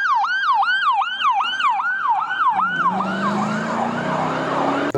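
Electronic police siren in a fast, repeating wail of about three sweeps a second, which fades out about halfway through. A hissing rush with a low steady hum follows.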